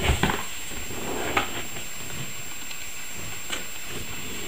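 Cardboard retail box of a Corsair H60 cooler being handled and turned over: a few brief soft scrapes and taps over a steady hiss.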